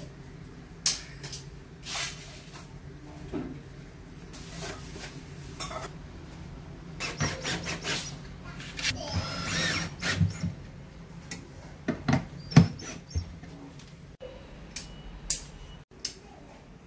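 Cordless drill-driver running briefly about nine seconds in, driving screws into a metal drawer runner inside a cabinet. Around it are repeated knocks and clatter of parts and tools being handled, the sharpest knock coming about twelve seconds in.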